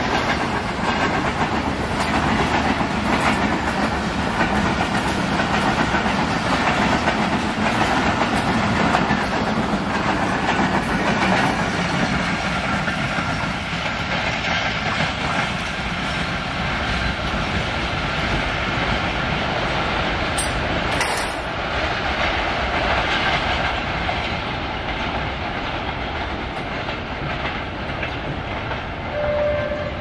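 A passenger train's coaches roll past on the rails with a steady clickety-clack of wheels and rattling, the sound slowly fading as the train draws away.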